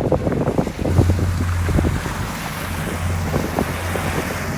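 Wind buffeting the microphone in irregular gusts over a steady low engine hum, as from a vehicle or boat under way.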